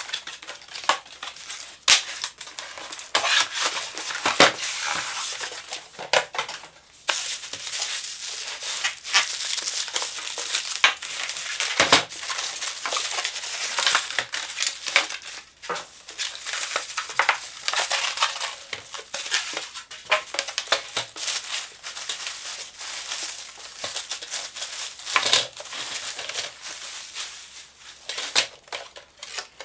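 Packaging being handled as a boxed espresso machine is unpacked: cardboard and wrapping rustling continuously, with many scattered sharp clicks and knocks.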